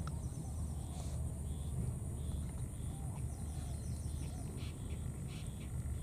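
Outdoor ambience: a steady low rumble and a constant high-pitched hum, with several faint, short rising-and-falling animal calls scattered through.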